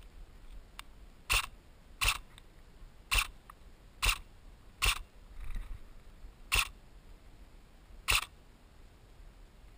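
A&K SR25 airsoft electric gun firing single shots on semi-auto: seven short, sharp clicks, roughly a second apart with a couple of longer pauses.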